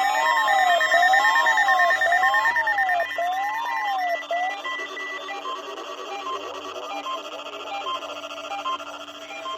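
Emergency Alert System attention tones for a weekly test: several electronic tones layered together, with a warble rising and falling about once a second. The warble stops about four and a half seconds in, and repeating beeps carry on more quietly.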